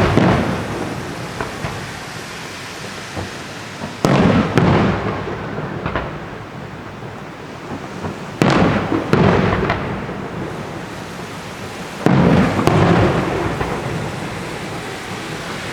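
Aerial firework shells bursting, four loud bangs about four seconds apart. Each bang trails off in a long rolling rumble like thunder, with a hissing crackle like rain from the glittering stars falling.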